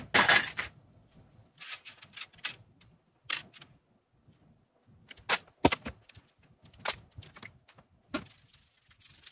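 Parts of a wooden bed frame being handled during disassembly: a loud clatter right at the start, then scattered clicks and knocks of wooden panels and metal fittings.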